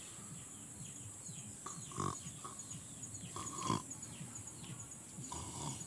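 A person's pig-like grunts and snorts, made face-down while eating off a banana leaf. Three louder grunts come about a second and a half to two seconds apart, with softer snuffling between.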